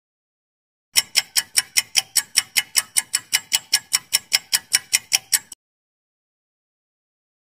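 Countdown-timer ticking sound effect, like a clock: quick, even ticks, about five a second. It starts about a second in and cuts off suddenly about four and a half seconds later.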